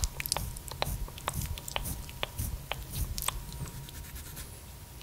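Fingertips tapping and dabbing at a clear plastic glitter palette: irregular light clicks, about two or three a second, over soft handling noise.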